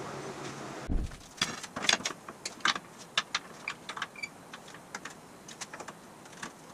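A low thump about a second in, then a run of light metal clicks and clinks, quick at first and sparser later, from a tubular steel Panhard bar being handled and fitted against the car's frame and axle. Before the thump, a steady shop hum.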